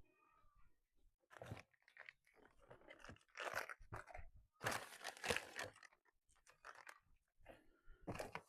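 Rummaging through small bike parts and their packaging: irregular rustling and crunching, loudest in the middle, while searching for a small nut spacer.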